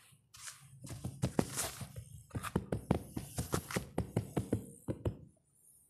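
Hands raking, pressing and patting dry sand-cement mix: a grainy hiss of shifting sand, then a quick run of crisp pats and crunches that stops about five seconds in.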